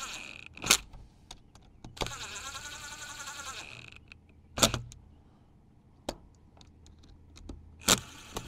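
DeWalt cordless driver whirring in a short, slow run that speeds up and slows down, seating the screws of a SHURFLO pump's plastic upper housing one by one. Sharp clicks of the tool on the screws come about a second in, in the middle and near the end.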